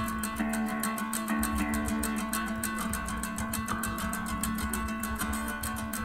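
Background music led by guitar, with sustained notes over a steady beat.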